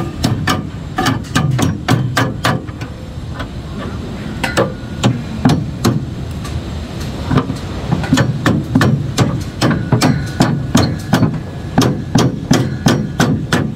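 A hammer striking fittings on steel wall formwork in quick runs of blows, several a second with short pauses between runs. Some blows leave a brief metallic ring, over a steady low rumble.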